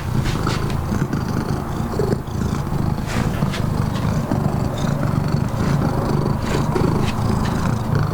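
Domestic cat purring steadily with a low rumble, interrupted by a few brief rustles or clicks.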